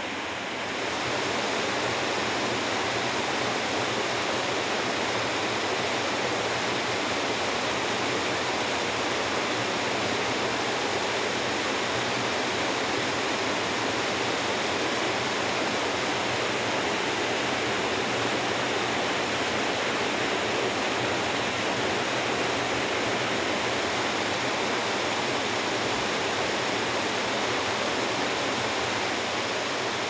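Waterfall pouring over a rock face, a steady rushing of falling water that grows a little louder about a second in.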